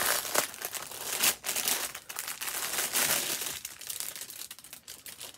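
Clear plastic bag crinkling and crackling as it is pulled off a bundle of diamond painting drill packets; the crinkling is busiest for the first three and a half seconds, then dies down.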